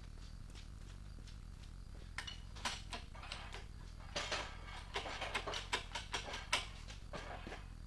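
A run of irregular light clicks and knocks, about a dozen, starting about two seconds in and stopping near the end, over a low steady hum: work noises of tools or metal parts being handled.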